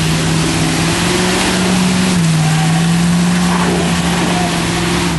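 Engine of a 4x4 off-road vehicle running under load as it drives through mud close by, the engine note rising slightly and then dropping a little just over two seconds in, over a steady rush of noise.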